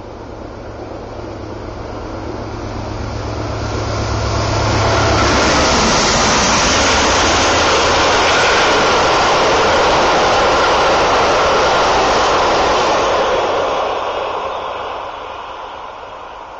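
Amtrak passenger train passing close by: a low diesel engine hum at first, then about five seconds in the loud, steady rush of Superliner bilevel cars rolling over the rails, fading away over the last few seconds.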